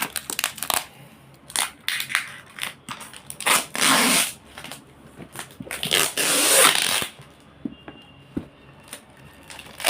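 Cardboard packaging being opened by hand: scattered clicks and rustles, with two longer rasping noises about four and six seconds in.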